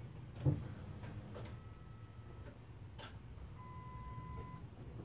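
Ford Mondeo's dashboard with the ignition switched on and the engine not running: a few faint electronic beeps, each a steady tone about a second long, over quiet ticking, with a single click about three seconds in.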